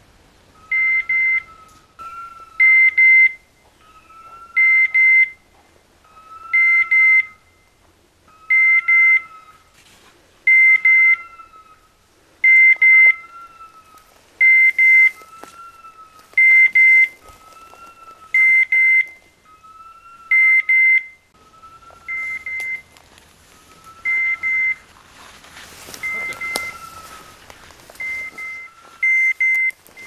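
Hunting dog's beeper collar sounding in point mode: a sharp double electronic beep about every two seconds, the sign that the pointer has gone on point. About two-thirds of the way in the beeps turn single and quieter, and rustling through brush is heard near the end.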